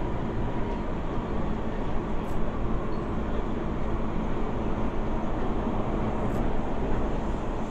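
Interior noise of an SMRT C151 metro car running between stations: a steady rumble of the wheels on the track and the running gear, with two faint ticks about four seconds apart.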